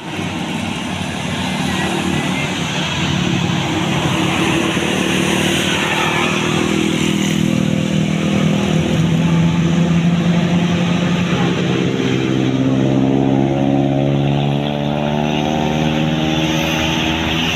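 Bus engine running amid road traffic, its pitch climbing slowly through the second half as it accelerates.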